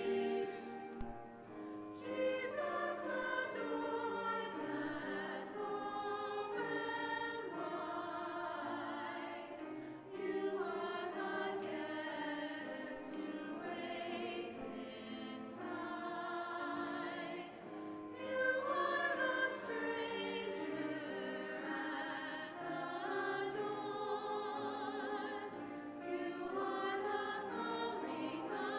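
Church singing with a wavering vibrato on long held notes over steady accompaniment: a hymn sung during communion at Mass.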